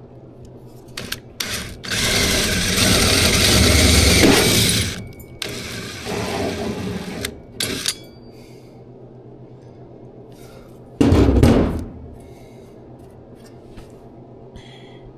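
Drill driving a 3.5-inch hole saw into the Impala's sheet-metal dash in short bursts: a few quick blips, then two cuts of about three and two seconds, and one more short burst later on. The saw is only touching off to score a mark, not cutting through.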